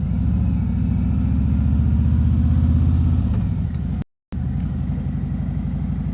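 Harley-Davidson V-twin engine running under way with a steady, pulsing low rumble, heard through a mic inside the rider's helmet; it eases slightly after about three seconds, and the audio drops out completely for a moment about four seconds in.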